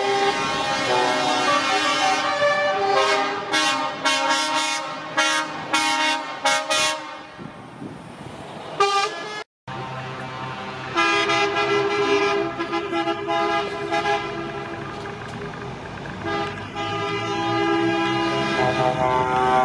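Truck horns honking from a passing convoy: a series of short toots in the first half, then, after a brief break, long held horn blasts.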